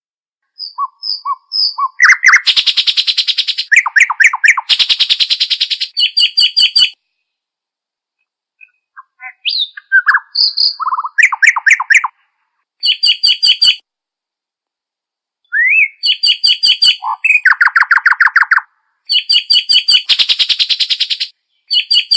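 A songbird singing loud, fast phrases of chattering notes, rapid trills and short whistled slurs, repeated with a few short pauses between them.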